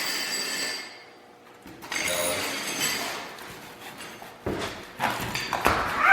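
BMX bike being ridden and handled on a hard floor: tyres scuffing with high squeaks, then a few sharp knocks and clatters of the bike near the end.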